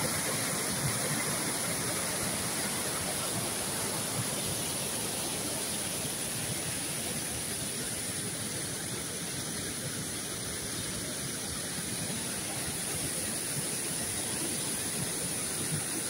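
Mountain river waterfall in full flow: white water rushing steadily down a rocky chute.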